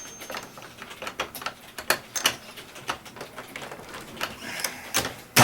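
Brass rifle cases and a reloading press with a crimp remover die clicking and clinking as a case is worked into the die, with two loud metal knocks near the end.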